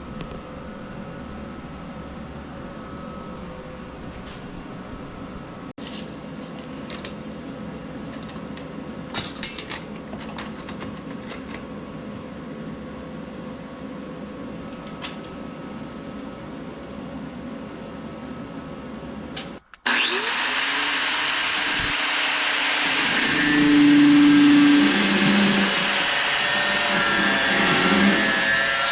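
A low steady hum with scattered clicks and taps. After a brief dropout about twenty seconds in, a loud electric power tool starts and runs steadily.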